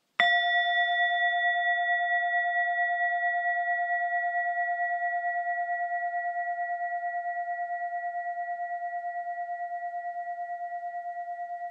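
A meditation bell, struck once, rings out and slowly fades over several seconds with a steady wavering pulse, closing the meditation.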